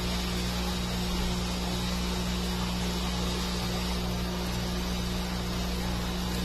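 Steady mechanical hum with an even hiss over it.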